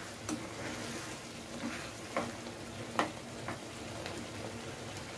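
A metal spatula stirring grated bottle gourd cooking in milk and cream in a pan, over a soft steady sizzle, with about four sharp clicks of the spatula against the pan.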